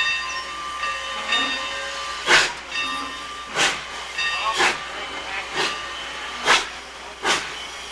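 1924-built Baldwin steam locomotive getting under way: a steady hiss of steam, then from about two seconds in loud exhaust chuffs that come closer together as it picks up speed.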